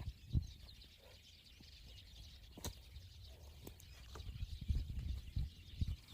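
Shovel working wet soil: irregular soft thuds with a few sharp knocks, over a faint high background hiss.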